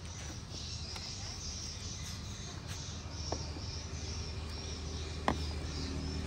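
Insects chirping steadily in the background over a low steady hum, with two small sharp clicks about three and five seconds in as wires and the hard-drive unit are handled on the table.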